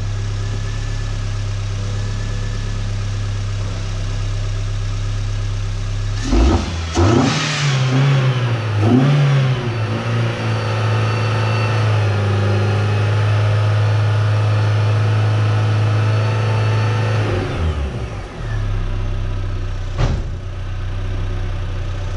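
R50 Mini Cooper's 1.6-litre four-cylinder petrol engine idling, blipped twice, then held at raised revs for several seconds before dropping back to idle. It is being run to load the cooling system and test whether the cooling fan fuse blows. A single sharp click comes near the end.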